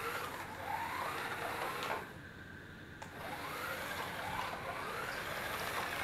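Small electric motor of a cardboard remote-control auto rickshaw whining as it drives, its pitch rising as it speeds up. It drops away with a click about two seconds in, then starts again about a second later and rises once more.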